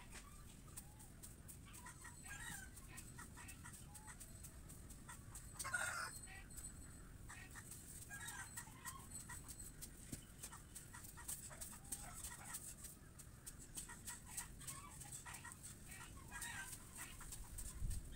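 Chickens clucking faintly on and off, with a stronger call about six seconds in.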